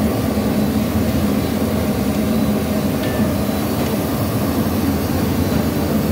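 Steady low roar of a commercial kitchen's gas range and equipment running, unbroken throughout.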